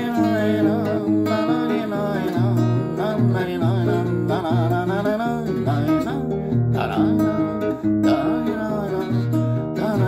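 Acoustic guitar played in a bass-note-and-strum rhythm, with a man's voice singing over it.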